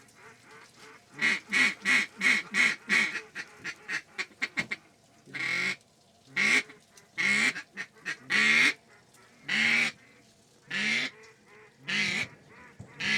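Duck quacking: a quick run of about six quacks, a few fainter ones, then a steady series of longer, loud, downward-bending quacks about one a second.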